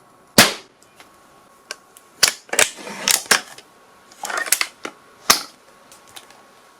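A single sharp gunshot, then a quick run of mechanical clicks and rattles, typical of a firearm's action being worked between shots.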